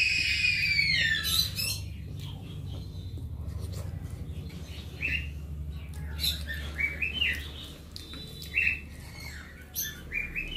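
Birds calling: a long squawk that rises and falls in pitch at the start, then a string of short high chirps in the second half, over a steady low hum.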